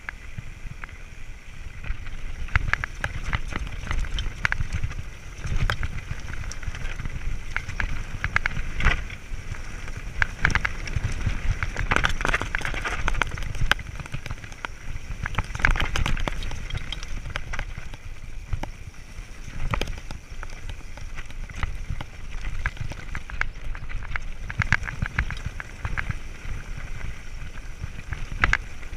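Mountain bike riding fast over a rocky gravel trail: tyres crunching on loose stones and the bike rattling and clattering over the bumps, with a steady rumble of wind on the microphone.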